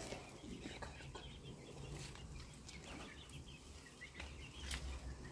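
Faint backyard fowl sounds: chickens clucking, with short high chirps and a couple of sharp clicks.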